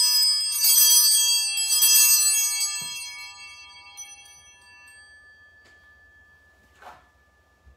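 Altar bells rung three times at the elevation of the chalice, each ring sounding several bright tones together that ring out and fade over a few seconds. There is a soft knock about three seconds in, and a faint bump near the end.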